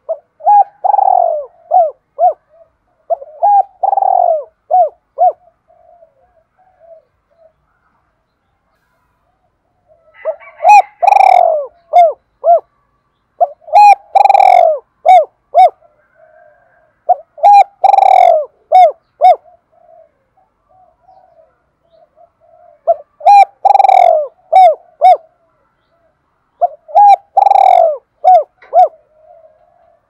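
Spotted dove cooing a challenge call: loud multi-note coo phrases, each a strong note followed by several short ones, repeated about seven times, with a pause of a few seconds after the first two.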